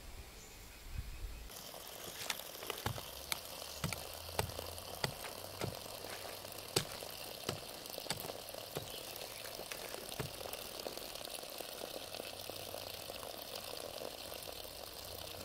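Hand hoe chopping into garden soil, a sharp knock about every half second for several seconds, then only now and then, over a steady hiss.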